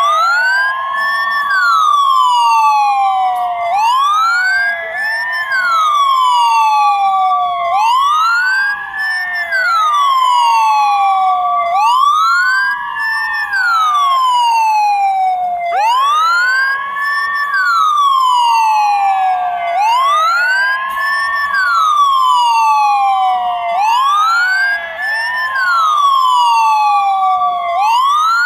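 Ambulance siren wailing, its pitch rising and falling in a repeating cycle of about four seconds. A second, steadier tone climbs and holds level between the sweeps.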